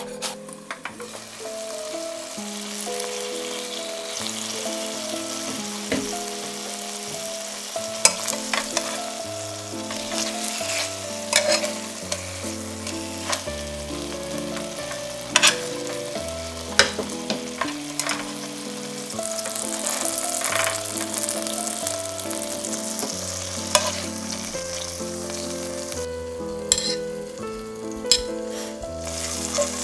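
Chicken breasts frying in butter in a stainless-steel pan, a steady sizzle with sharp metal clicks of utensils against the pan every few seconds.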